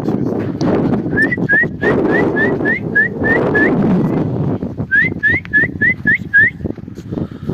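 A person whistling to call horses in: two runs of short, quick rising whistle notes, about nine and then six, a few notes a second.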